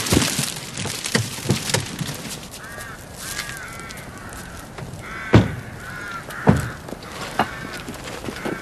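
Crows cawing several times, with a few clicks and then two loud thumps about a second apart as car doors are shut.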